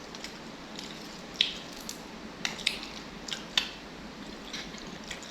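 Close-up mouth sounds of a person eating noodle soup: a handful of short, wet clicks and smacks from chewing, irregularly spaced over a quiet background.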